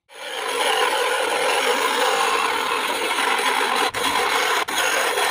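Homemade mini saw, a small blade driven through gears by a salvaged DC motor, sawing through a PVC sheet with a steady, loud rasping, broken twice by brief gaps near the end.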